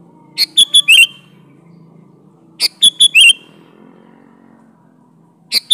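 Sooty-headed bulbul singing short, bubbly phrases of four or five quick whistled notes, each ending in a slurred downward note. The phrase comes three times, about every two and a half seconds, the last starting near the end.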